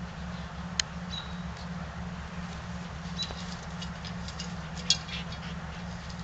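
Wolfdogs nosing and pawing a plastic bowl on dry leaves: scattered rustling and light ticks, with two sharp knocks, one about a second in and a louder one about five seconds in, over a steady low hum.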